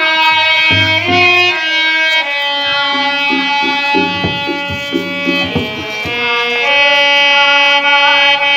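Instrumental Indian music: a melody of long held notes stepping up and down, with a run of drum strokes in the middle.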